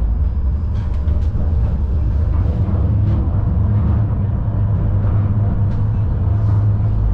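Tram running along the track, heard from inside the car at its rear window: a steady low rumble with a few faint clicks.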